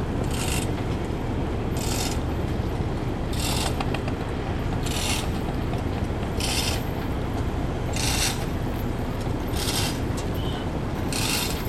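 Speed boat's engine running with a steady low rumble, while a short, high rasping scrape repeats evenly about every one and a half seconds.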